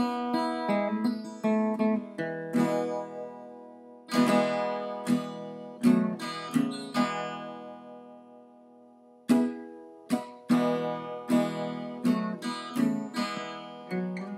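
Background music on acoustic guitar: strummed and picked chords that ring out and fade. About halfway through, one chord is left to die away for a couple of seconds before the playing starts again.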